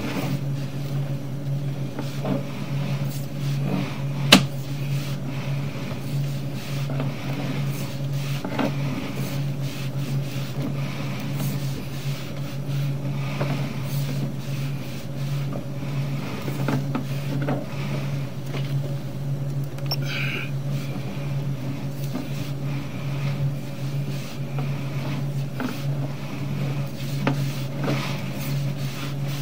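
Steady low machine hum with a slight pulse, under scattered light clicks and rubbing as a sewer inspection camera's push cable is pulled back out of the line. There is one sharp knock about four seconds in and a brief squeak near the middle.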